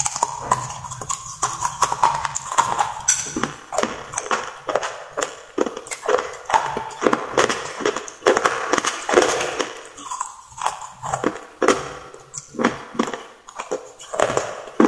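Slate pencils bitten and chewed between the teeth: a fast, irregular run of sharp, dry crunches.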